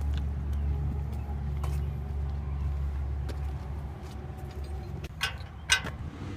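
Low, steady engine rumble that fades about four seconds in, followed by two sharp knocks near the end.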